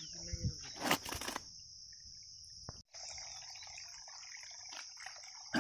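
Steady high-pitched drone of insects such as crickets, with the splashing and sloshing of muddy water from hands working through the mud in the first second and a half.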